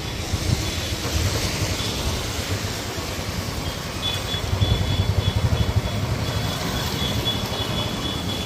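Road traffic noise with an uneven low wind rumble on the microphone. From about halfway through, a faint thin high tone comes and goes.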